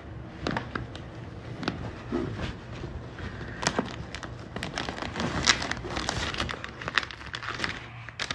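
Rummaging through a bag by hand: irregular rustling of things being moved, with scattered sharp clicks and knocks.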